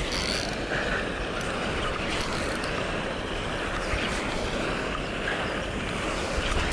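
Steady rushing wind noise buffeting the camera microphone, with a rumble that comes and goes.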